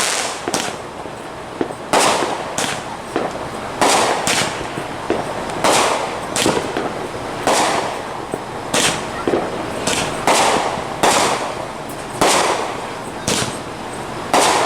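Fireworks going off in quick succession: a string of sharp bangs, roughly one or two a second, each trailing off into a short rumble and crackle.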